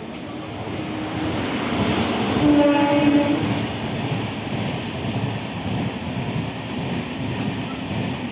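Passenger train hauled by an electric locomotive running past a station platform: a steady rumble and rush of wheels and coaches that builds over the first few seconds. A horn sounds for about a second, about two and a half seconds in.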